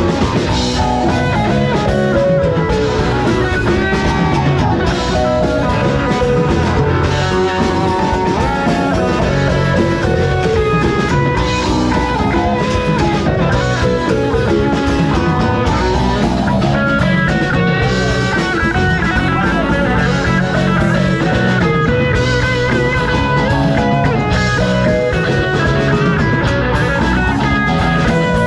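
Folk rock band playing an original song: guitars over a drum kit, at a steady loud level.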